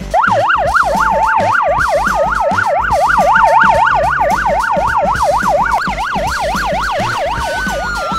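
Military police van's siren in fast yelp, its pitch sweeping up and down about four times a second, starting abruptly. Near the end a second siren tone slides slowly downward.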